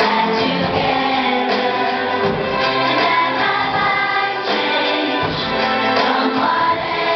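A group of children singing a song together in unison, with instrumental accompaniment underneath.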